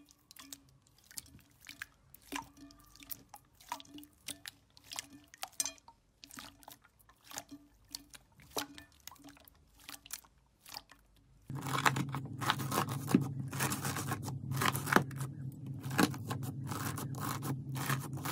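Hands squeezing and stretching clear red slime: scattered soft squelches and small clicks. About eleven seconds in it gives way to louder, dense crackling over a steady low hum, as granular yellow slime is pressed and cut with a knife.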